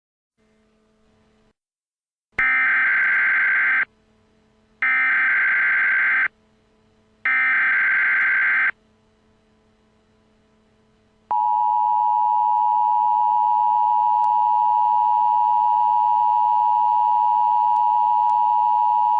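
Emergency Alert System header: three short bursts of warbling digital data tones, each about a second and a half long, coding the alert. About eleven seconds in comes the loud, steady two-tone attention signal, held for about eight seconds, which announces that an emergency message follows.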